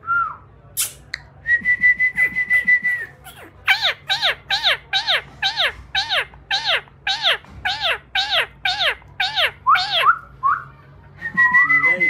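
Indian ringneck parakeet whistling: a held single-pitch note, then a long run of quick down-slurred whistles, about two a second, and another held note near the end.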